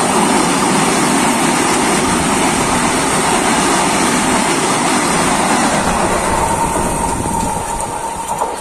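Vande Bharat Express electric trainset's coaches running past close by: a steady, loud noise of wheels on rails that fades over the last second or two.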